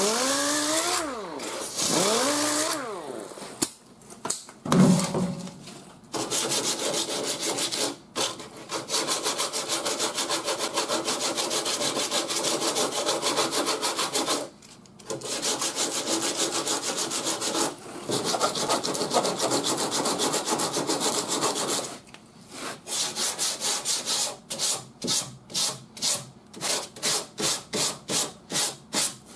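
An 8-inch air-powered Bondo Hog disc sander spinning down twice with a falling whine. Then a hand sanding block rasps across hardened body filler on a steel fender, first in long sweeps and near the end in quick, short strokes about three a second.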